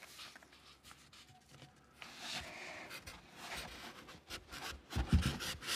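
Polystyrene packing insert rubbing and scraping against a cardboard box as it is handled, with a few dull knocks near the end.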